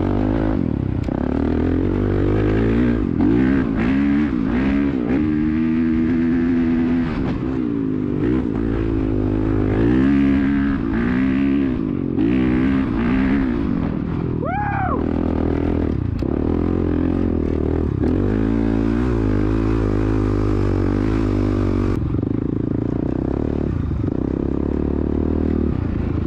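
Dirt bike engine running hard, its pitch rising and falling again and again as it revs.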